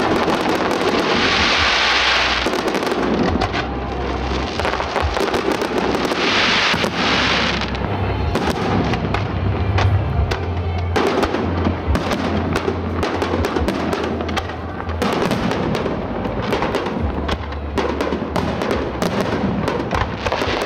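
Fireworks display: a dense run of bangs and crackles from shells bursting overhead, with two stretches of loud hissing crackle about a second in and about six seconds in. Music with low steady bass notes plays underneath.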